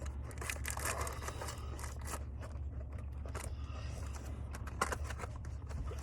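Faint crinkling and rustling of a snack bag with scattered small clicks, over a low steady hum.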